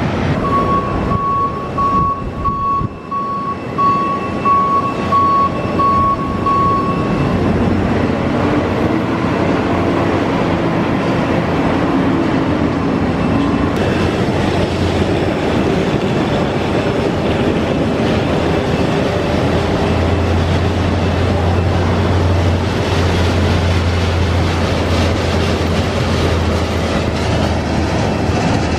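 Steady, loud noise of airliner jet engines, with a vehicle's warning beeper pulsing at a single pitch for the first several seconds. A deeper engine drone builds about two-thirds of the way in.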